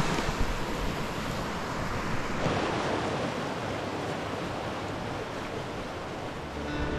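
Fast mountain stream rushing and splashing over rocks in white-water rapids, a steady noise.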